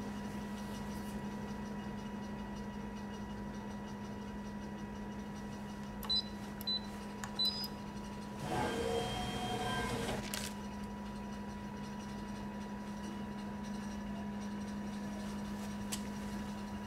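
Vending machine humming steadily. Its keypad gives three short high beeps as buttons are pressed, and about two seconds later the machine's motor whirs for about two seconds, turning the dispensing spiral.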